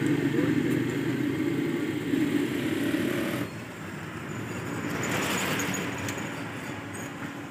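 Street traffic noise: a steady engine hum that drops off abruptly about three and a half seconds in, then a vehicle passing by that swells and fades.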